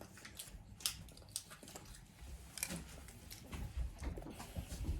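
Quiet chewing of soft peach Hi-Chew candy, with a few scattered sharp clicks and rustles.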